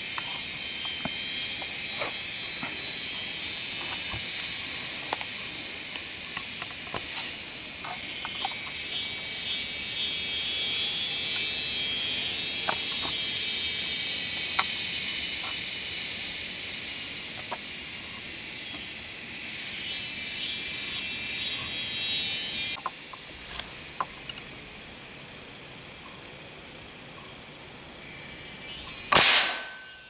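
Forest insects calling: a rhythmic high chirp pulsing a little more than once a second over a continuous high buzzing chorus, which switches abruptly about two-thirds of the way through to a steady high-pitched insect whine. A single sharp crack near the end.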